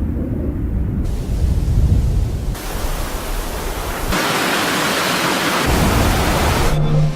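Loud sound-effect roar of deep rumble and hiss, starting right after silence and shifting abruptly several times, the rumble dropping out for a second or two past the middle before returning; a brief low hum sounds near the end.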